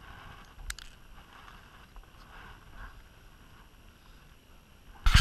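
Low wind rumble on an action camera's microphone, with a faint click under a second in. Near the end, a sudden loud scraping rustle as the camera is handled.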